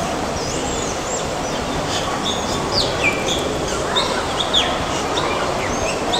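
Small birds chirping repeatedly in short, quick high notes over a steady background hiss.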